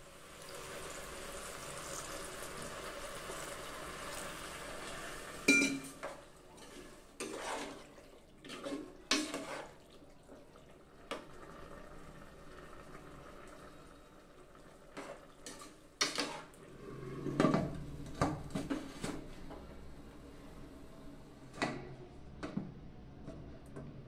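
A spoon stirring macaroni in an aluminium pressure cooker, clinking and knocking against the pot's sides, with a cluster of louder knocks about two-thirds of the way through. A steady hiss of the simmering liquid fills the first five seconds or so.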